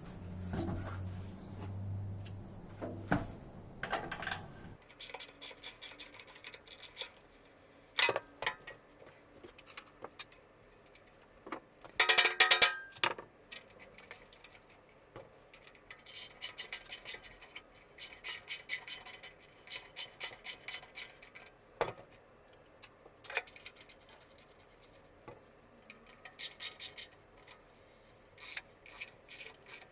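Clinks, clicks and rattles of metal parts and tools being handled, with a louder ringing clatter about twelve seconds in. A low hum runs for the first few seconds.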